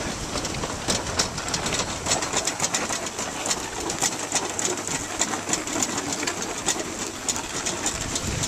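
Sea water washing and lapping below a pier: a steady rushing hiss with many small crackling clicks.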